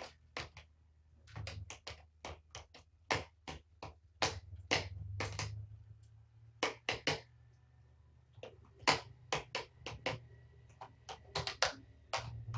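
Kitten eating cat food from a bowl: an irregular run of sharp, wet smacking clicks of chewing and licking, several a second with short pauses, over a steady low hum.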